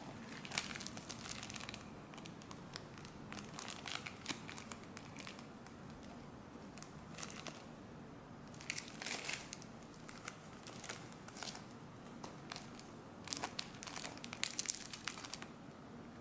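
Plastic or foil trading-card packaging crinkling as it is handled, in several short bursts with pauses between.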